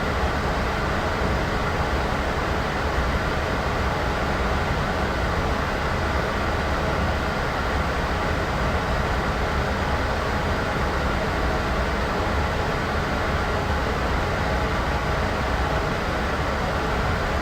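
Steady white-noise sound effect: an unbroken hiss over a low rumble, without change or distinct events.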